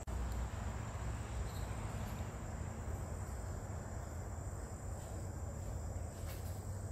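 Insects trilling steadily at one high pitch, over a steady low rumble.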